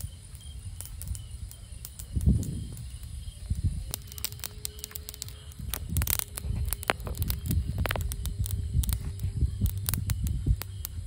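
Open cooking fire crackling, with many sharp irregular pops over a low rumble. One louder thump comes about two seconds in.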